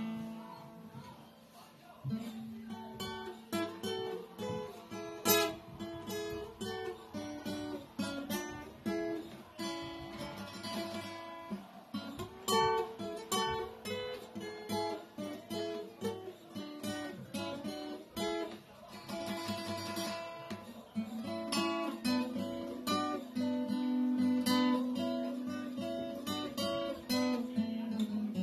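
Solo acoustic guitar played by hand, mixing picked notes and strummed chords, with no singing.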